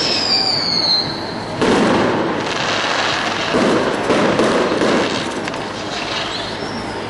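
Fireworks display: aerial shells bursting with about four loud bangs, over steady crackling. A whistle falling in pitch sounds in the first second.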